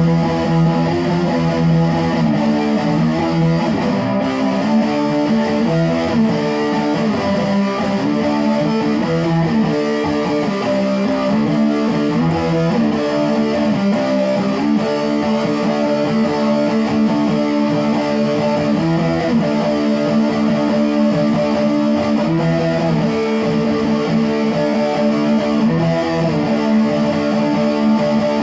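Guitar being played continuously, with held, overlapping notes and chords that change every second or two.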